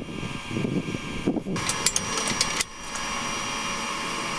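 Hands working a clamp against a square steel tube frame: handling noise, then a quick run of light clicks and taps about two seconds in. After that a steady mechanical hum holds to the end.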